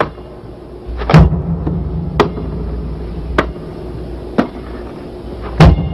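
A basketball bounced slowly on a hard floor, five bounces about a second apart, over a low steady hum.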